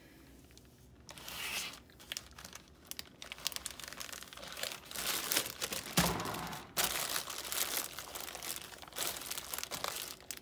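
Plastic zipper bag and the paper wrapping inside it crinkling and rustling as hands press the air out, fold the bag over and smooth it flat. A thump about six seconds in is the loudest moment.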